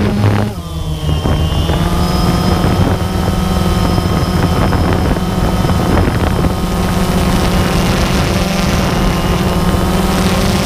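Multirotor drone's electric motors and propellers whining steadily. About half a second in the level dips and the pitch glides back up as the rotors change speed.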